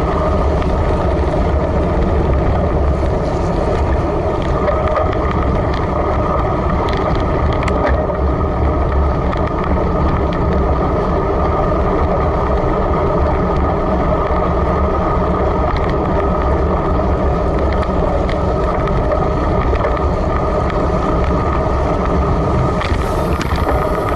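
Steady rush of wind and tyre noise picked up by a bicycle-mounted camera while a road bike rolls along a wet road at about 30 km/h.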